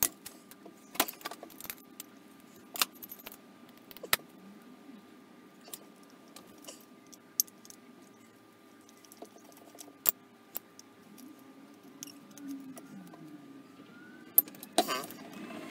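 Screwdriver and small metal carburettor parts clinking and tapping during hand disassembly: sharp, irregular clicks spread through, with a louder clatter near the end, over a faint steady hum.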